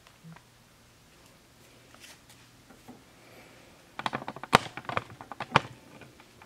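Magnavox MWR20V6 DVD/VHS recorder powering up and loading: a rapid cluster of mechanical clicks and rattles lasting about two seconds, starting about four seconds in.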